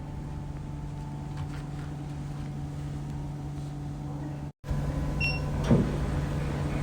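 Light therapy machine running with a steady electrical hum. A short electronic beep sounds about five seconds in, just after a brief break in the sound.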